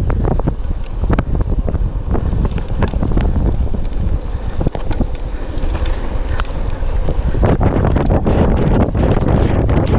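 Wind buffeting the microphone over a mountain bike ridden on a trail, with tyres rumbling over the ground and a rapid run of clicks and rattles from the bike, which grows busier and louder late on.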